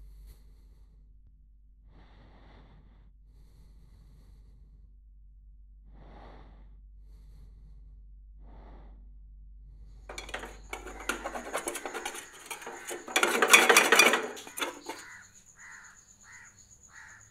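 Crows cawing, three faint calls a few seconds apart. About ten seconds in, a frying pan clatters on a gas burner and food sizzles in it, loudest a few seconds later.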